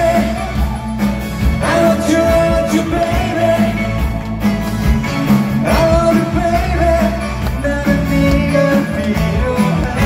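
Live rock band music: a male singer with electric guitars and drums.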